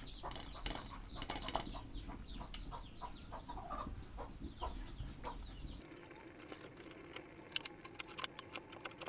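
Chickens clucking, a rapid run of short, quickly falling calls. About six seconds in, the calls cut off abruptly, leaving a quieter background with scattered faint clicks.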